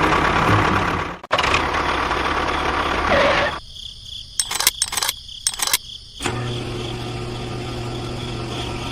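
Small motors of home-made miniature construction vehicles running, broken by abrupt cuts. From about three and a half seconds in there are a few short, sharp bursts with near-quiet between them, and from about six seconds a steady low hum.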